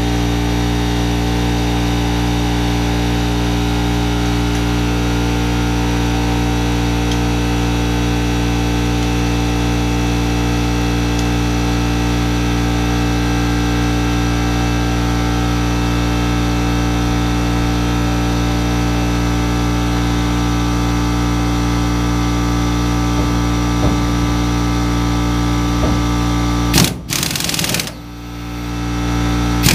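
Air compressor running with a steady mechanical drone, cutting off abruptly near the end, followed by a short burst of noise from a pneumatic impact wrench put to a cylinder-head bolt.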